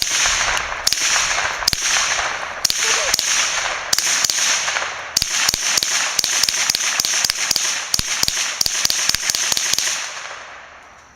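Gunfire from a small-calibre firearm: single shots about a second apart, then from about five seconds in a rapid string of shots, several a second, that stops about ten seconds in.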